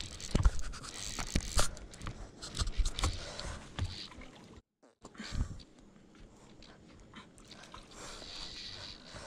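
Irregular scrapes and knocks of a fly rod and line being handled close to the microphone. The sound cuts out completely for a moment about halfway, then goes on quieter with only a few scattered ticks.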